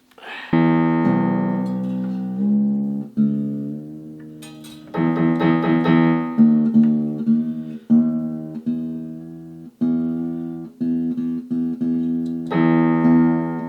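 Freshly fitted strings on a Fender acoustic-electric guitar being plucked one note at a time during tuning. A single ringing note shifts in pitch in small steps as the tuning peg is turned, followed by quick repeated plucks of the same note, a few a second.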